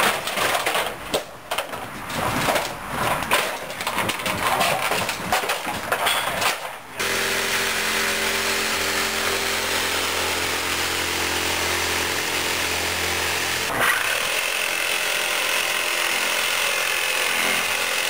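Irregular knocking and clattering as aluminium gutters and trim are pried off a wooden porch roof. About seven seconds in, a corded reciprocating saw (Sawzall) starts and runs steadily, cutting through the porch roof; it pauses briefly about fourteen seconds in and then runs on at a higher pitch.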